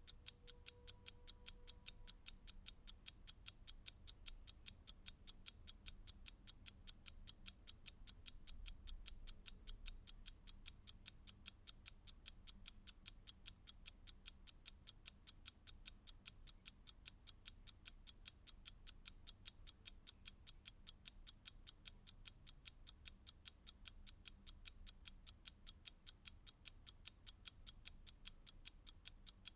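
Mechanical clock ticking: sharp, even ticks several times a second at a steady rhythm.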